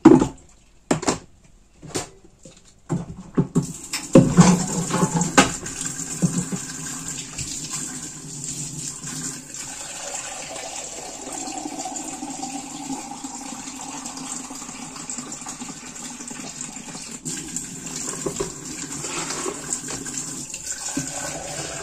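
A few knocks as a plastic bucket and its lid are handled. Then, about four seconds in, tap water starts running into the bucket, loudest at first as it strikes the empty plastic, then steady: the bucket is being filled to make brine for cheese.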